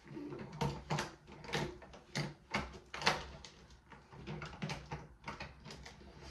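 Makeup containers and cases being handled and sorted through: a run of irregular small clicks and knocks, about two a second.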